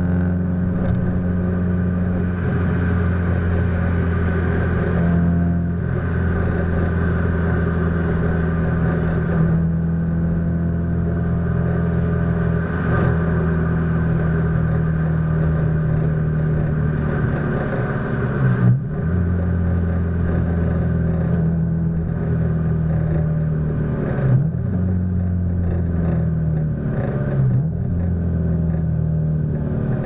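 Subaru Impreza STI's turbocharged flat-four engine drones steadily through an A.R.T. titanium aftermarket exhaust while the car cruises at a nearly constant engine speed. The note dips briefly in pitch about two-thirds of the way through and twice near the end. The sound is slightly muffled by a waterproof camera housing.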